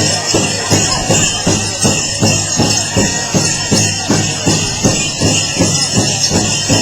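A powwow drum group strikes a large shared drum in a steady beat of about three strokes a second, with a bright, continuous jingling over it.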